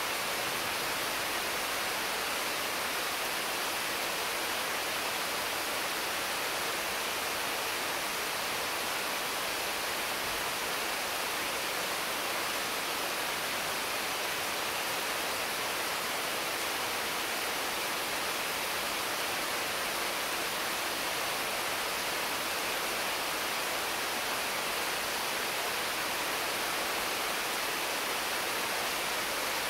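Heavy rain falling steadily on the leaves of mango, papaya and other trees, an even, unbroken hiss.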